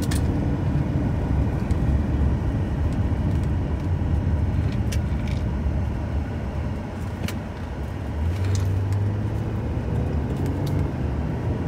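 Car driving, heard from inside the cabin: a steady low rumble of engine and road noise, with a few light clicks.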